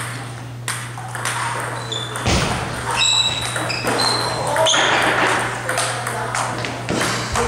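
Table tennis rally: the celluloid ball clicking sharply off the bats and the table, hits coming irregularly about once every half second to a second, over a steady low hum.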